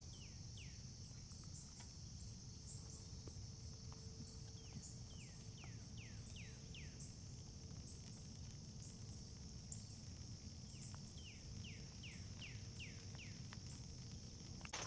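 Faint woodland ambience: insects keep up a steady high-pitched chorus while a bird whistles runs of quick downslurred notes, three phrases of a few notes each, over a low rumble.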